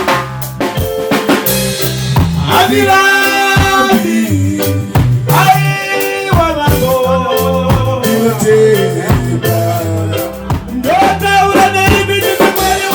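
Upbeat band music with singing over a steady bass line and drum kit.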